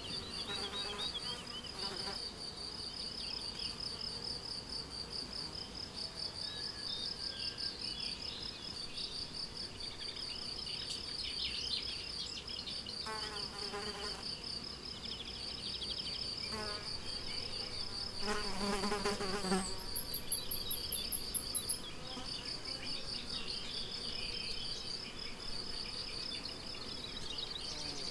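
Crickets chirping in a steady high pulsed trill, with scattered bird song behind. About two-thirds of the way in, a flying insect buzzes close by for a couple of seconds, the loudest sound.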